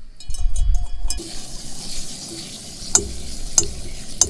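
Liquid poured from a bottle into a hot steel pan on a camp stove, sizzling steadily from about a second in, with three sharp clicks in the second half.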